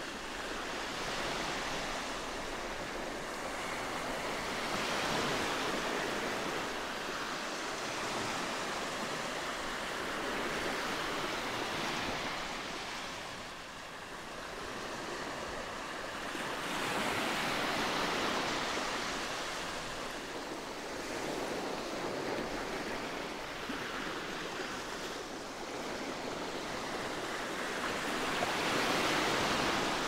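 Gentle sea waves breaking on the shore: a steady hiss of surf that swells and fades every several seconds, with the calm-day sea gently washing in.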